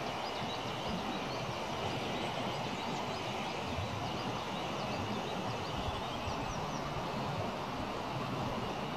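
Steady rushing of a swollen mountain river in spring flood, heard as an even, unbroken noise.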